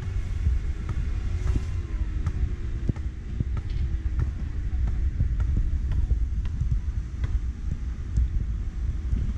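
Steady low rumble of road traffic. In the first few seconds one vehicle's engine note drifts slowly down, and scattered light ticks run throughout.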